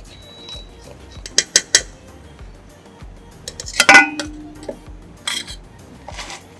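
Stainless steel pots being handled: a few light clinks, then one loud metallic clang about four seconds in that rings briefly, and a couple of lighter knocks after it.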